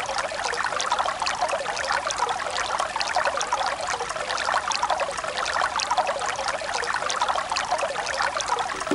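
Steady trickling water, a continuous fine crackle and splash with little low end.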